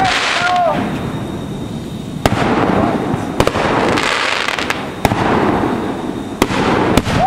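Consumer fireworks going off: several sharp bangs about a second apart, with crackling and hissing between them and short whistles in the first second.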